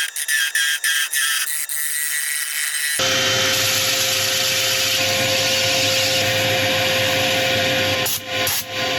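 Wood lathe running with a steady hum while a tool works the spinning grass tree root. The first three seconds are choppy and thin, then give way to a continuous rasping hiss, broken by two brief dips near the end.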